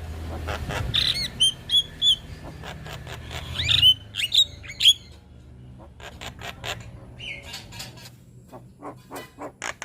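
Young Javan myna (jalak kebo) singing a varied run of sharp chirps, squawks and upward-hooked whistles. In the second half it breaks into a quick series of short, clipped notes.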